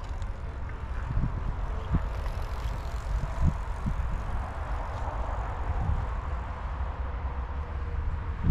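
Steady low rumble of vehicle noise, with a few short dull thumps between about one and four seconds in.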